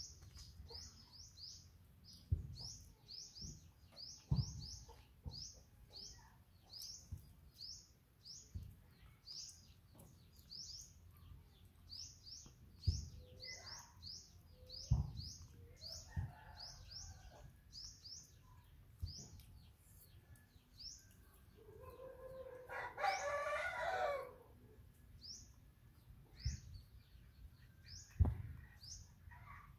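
A small bird chirping over and over, short high chirps about twice a second. About 23 seconds in, a rooster crows once, and there are a few dull low knocks.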